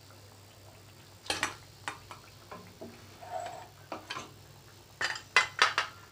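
A metal utensil clinking and scraping against the kadai as a fried potato chop is lifted out of the oil: sharp, irregular clinks, with the loudest run of them near the end.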